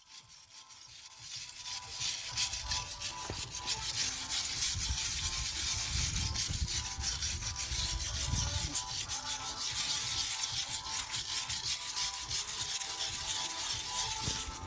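Steady abrasive scrubbing on metal that builds up about two seconds in: carbon being cleaned off a piston top and cylinder wall in a 5.9 L V8 block.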